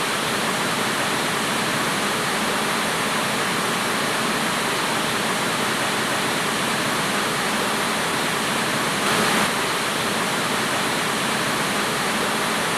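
Steady, fairly loud static hiss, like a dead TV or radio channel, with a brief slight swell about nine seconds in.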